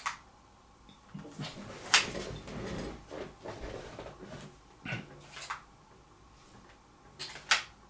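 LG Wing smartphone being handled: a series of sharp clicks and taps, the loudest about two seconds in and two close together near the end, with some rustling between.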